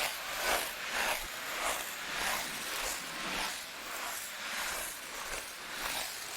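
Ice skate blades scraping and gliding on ice in a steady skating rhythm, each push a hissing scrape, a little under two strokes a second.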